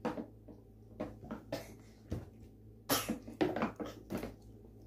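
Scattered short crunches and clicks of people eating fried chicken at a table, the sharpest about three seconds in.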